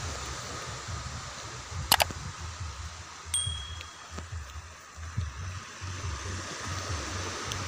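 Wind buffeting the microphone over the wash of small waves on the shore. A sharp click comes about two seconds in and a short high ding follows just after three seconds: the sound effect of a subscribe-button animation.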